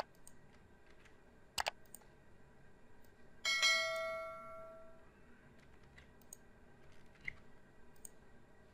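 Two sharp computer clicks and a few faint ticks, then a single bell-like chime about three and a half seconds in that rings and fades away over about a second and a half.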